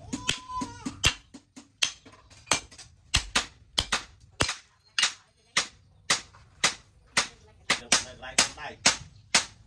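Hand-forged thick steel cleaver chopping repeatedly into the edge of an old axe head, steel striking steel about twice a second. Each blow is a sharp crack with a brief ring. The cleaver's edge is biting notches into the axe blade, a test of the cleaver's hardness.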